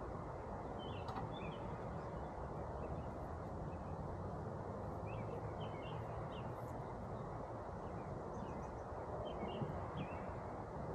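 Small birds chirping in short, scattered calls over a steady low outdoor rush of background noise.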